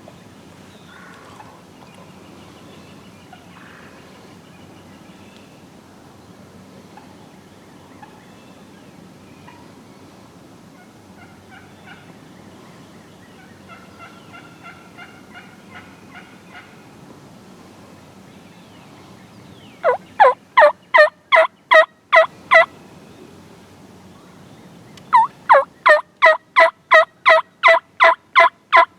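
Turkey yelping: a faint run of notes midway, then two loud, fast series of yelps, about ten and then about fifteen notes at four or five a second, the second series running into the end.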